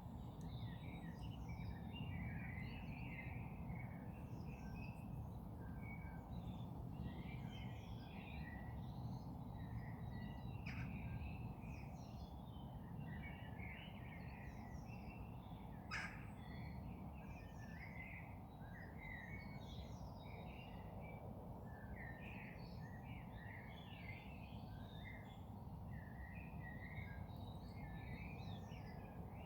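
Dawn chorus of wild garden birds: many overlapping chirps, trills and song phrases from several birds at once, over a steady low background rumble, with a single sharp click about halfway through.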